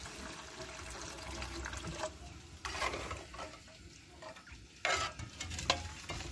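Water poured into a hot, bubbling sauce in an aluminium pot, followed by a metal ladle stirring it, with knocks and scrapes against the pot about three and five seconds in.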